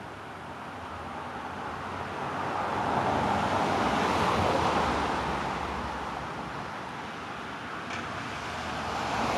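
A car passing on the street: tyre and engine noise swelling to a peak about halfway through and fading away, with another vehicle approaching near the end.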